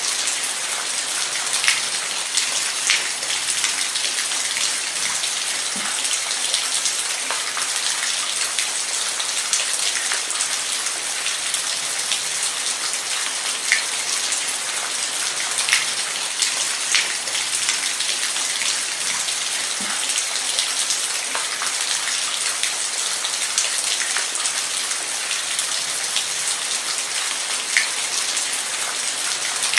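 Steady rain with individual drops ticking sharply on a hard surface now and then.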